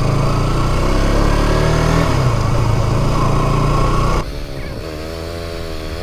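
KTM RC 200's single-cylinder engine running on the move, its pitch rising and falling. About four seconds in the sound cuts abruptly to a quieter, wavering engine note.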